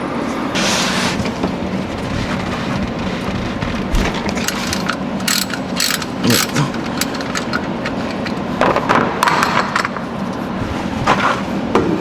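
Hand tools working at an oil drain plug under a car: scattered short metallic clicks and knocks, with a few longer scraping bursts, over the steady noise of a shop fan.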